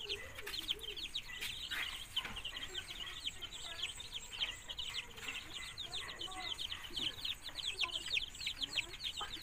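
Newly hatched native chicken chicks peeping without pause: a dense run of short, high peeps, each falling in pitch, several a second.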